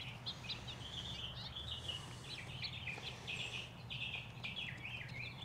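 Wild birds chirping and singing, many short high calls overlapping without a break, over a faint low steady hum.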